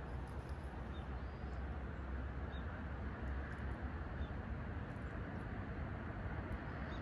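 Steady outdoor background noise with a low rumble, and a bird chirping faintly, one short high note every second or two.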